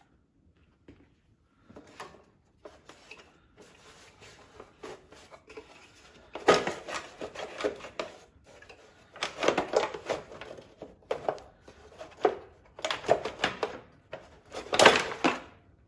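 Rattling and scraping of a riding mower's engine shroud being worked loose and lifted off by hand, in a series of short clattering bursts that get louder from about six seconds in, the loudest near the end.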